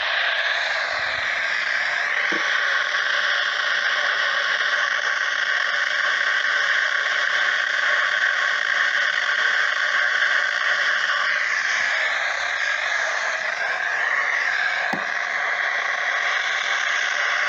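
Radio static: a steady hiss of receiver noise with faint wavering whistles in it.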